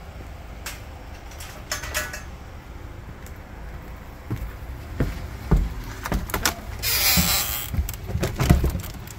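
An entry door being opened by hand, over a low rumble of wind on the microphone. There are a few latch-like clicks, heavy knocks from about five seconds in, a short scraping hiss about seven seconds in, and more knocks near the end.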